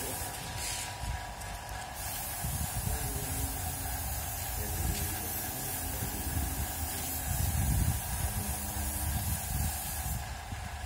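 Compressed-air paint spray gun hissing as it sprays paint onto a wall, a steady hiss with short breaks about a second in and near the end as the trigger is let off.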